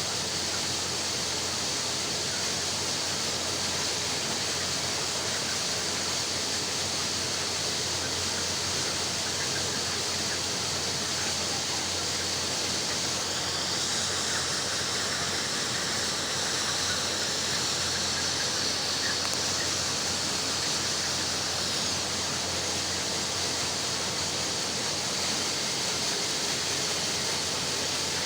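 A large poultry flock chirping and calling all at once, merging into a steady, high hiss-like din, with a low steady hum beneath.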